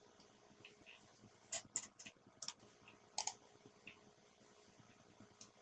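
Faint, irregular clicks of computer keyboard keys being typed in short clusters, over a faint steady hum.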